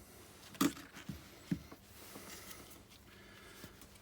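Saw teeth on the spine of a Broc Tracker knife rasping through green wood: three sharp strokes about half a second apart, then fainter scraping.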